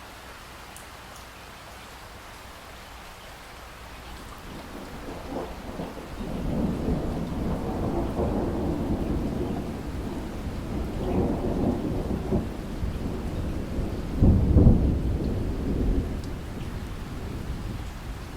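Steady rain with a long rolling peal of thunder that builds about a quarter of the way in, rumbles on, peaks in a loud clap a little past the middle, and dies away near the end.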